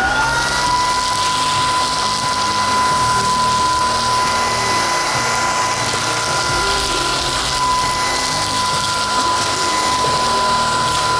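Greenote GSC50 cordless stick vacuum running at its second, highest power setting while picking up wood-stove pellets from a tiled floor. The motor whine climbs in pitch in the first second as it speeds up, then holds a steady high pitch over a steady rush of air.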